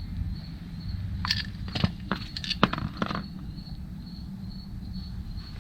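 A few light clicks and taps from hands handling spark plug ignition coils while dielectric grease is applied, over a steady low hum.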